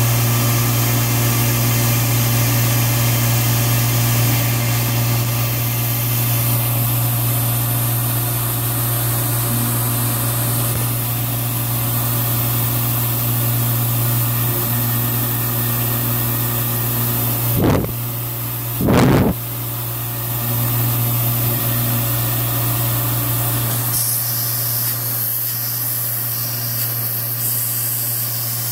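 Tormach PCNC 1100 CNC mill running steadily while a fine engraving bit cuts copper: a steady machine hum with a constant high hiss. About two-thirds of the way through come two brief loud thumps, a little over a second apart.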